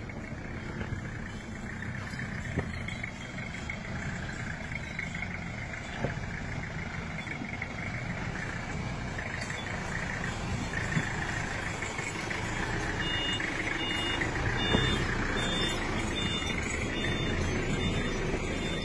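Off-road vehicle driving on a rough track: steady engine and road noise with a few sharp knocks. In the last third a short high beep repeats about once or twice a second.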